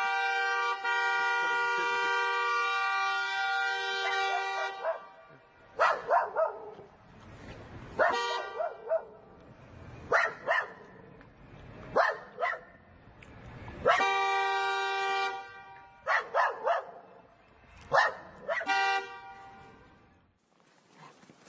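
A long, steady horn tone, then a dog barking in single barks about every two seconds, with the horn sounding again midway and briefly near the end.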